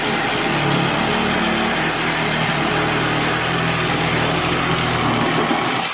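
Milwaukee Sawzall reciprocating saw running steadily, cutting, then stopping suddenly near the end.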